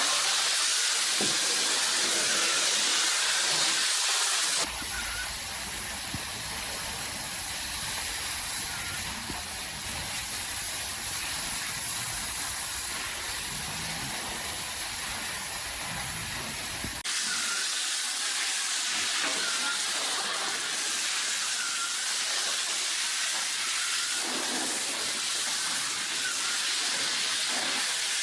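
Steady hissing noise that changes abruptly twice, about a third and about two-thirds of the way through.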